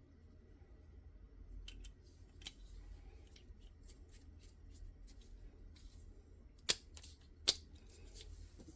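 Small clicks and taps of pistol parts being handled on a workbench while a red-dot optic is fitted to the slide, with two sharper clicks close together near the end, over a steady low hum.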